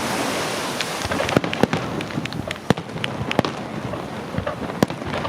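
Fireworks display: a dense, hissing crackle for the first second or so, then a rapid scatter of sharp cracks and bangs.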